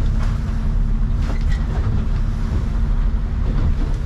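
Boat engine running steadily under way, a loud low drone heard from inside the wheelhouse.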